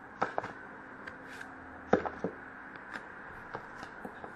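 Trading cards handled and set down on a glass tabletop: a handful of light taps and clicks, the loudest about two seconds in.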